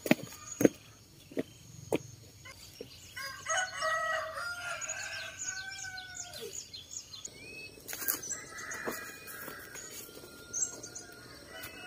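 A rooster crows once, a long call starting about three seconds in, while small birds chirp throughout. A few sharp knocks come in the first two seconds.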